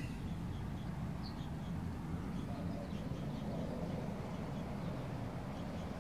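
Quiet background ambience: a steady low hum with faint, scattered short high-pitched chirps.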